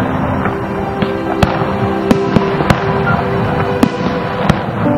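Aerial firework shells bursting in a string of sharp bangs, several a second apart, with sustained music playing beneath them.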